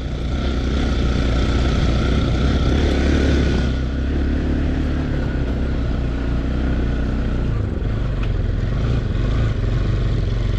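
Motorcycle engine running steadily while riding off-road, with its note dropping lower about three quarters of the way through.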